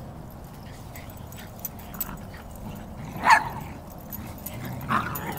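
A dog barking twice, one sharp bark about three seconds in and a second near the end, over low outdoor background noise.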